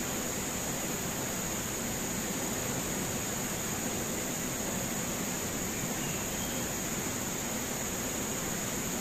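Steady rush of a fast river's rapids, with a constant high-pitched insect buzz above it.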